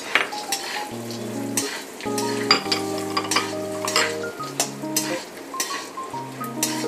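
Raw peanuts frying in a spoonful of oil in a steel kadhai, a metal spatula stirring and scraping them around the pan in repeated strokes, over soft background music.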